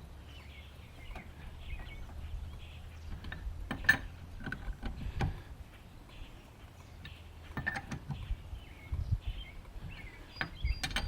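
Metal lug wrench clinking against the lug nuts a few separate times as the nuts are rechecked for tightness, over a low steady hum and faint bird chirps.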